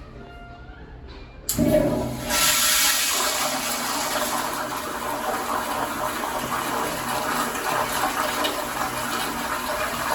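A toilet flushing: the water rushes in suddenly about one and a half seconds in and keeps up a loud, steady rush of draining and refilling water until the end.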